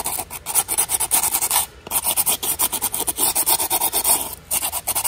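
Sandpaper rubbed by hand over the edge of a carbon-fibre mirror housing in quick back-and-forth strokes, several a second, with two brief pauses.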